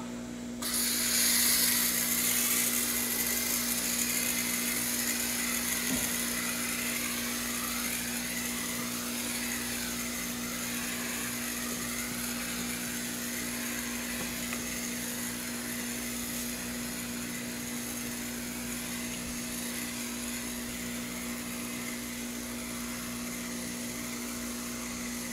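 Steady hiss of water spraying from a garden-hose-end sprayer bottle onto a wooden fence, starting about half a second in, over a steady low hum.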